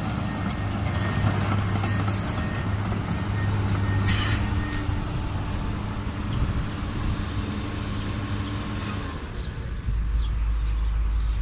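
Heavy diesel engine running steadily, with a short hiss about four seconds in. Near the end the steady hum gives way to a deeper low rumble.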